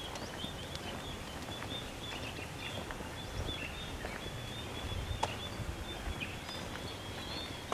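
Quiet outdoor ambience: a steady background hiss with faint, repeated high-pitched chirping throughout, a few light clicks, and a low rumble swelling a few seconds in.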